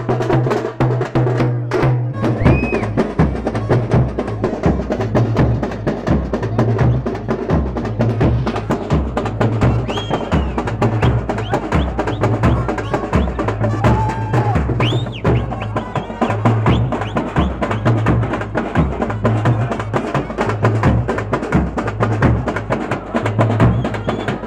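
Loud drum-led music: fast dense drum strikes over a low bass that pulses in a steady repeating beat.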